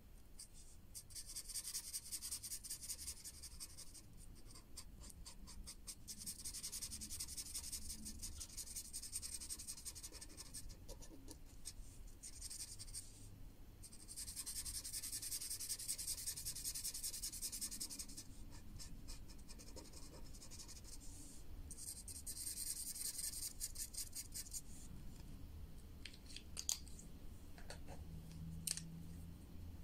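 Green marker scribbling quickly back and forth on paper, colouring in, in long stretches of rapid strokes broken by short pauses. Two sharp clicks near the end.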